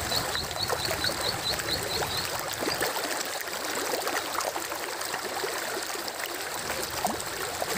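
Fast-flowing river water rushing and churning past bamboo posts, a steady even rush. For the first two seconds a high chirp repeats about four times a second.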